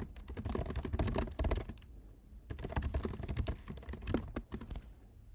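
Fast typing on a computer keyboard: two quick runs of rapid keystrokes with a short pause between them, stopping shortly before the end.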